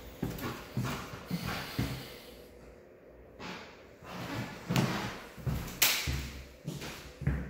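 Footsteps on a hardwood floor, about two steps a second, with a few louder thuds and rustles, the loudest a little past the middle.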